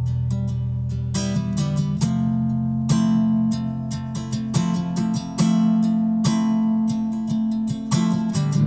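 Nylon-string acoustic guitar playing ambient music: a run of plucked notes and light strums rings over a steady low sustained tone.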